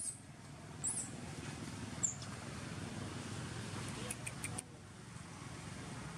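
A baby macaque giving short, very high-pitched squeaks, three about a second apart, then a quick cluster of sharp squeaks a little past four seconds in, over a low rustle.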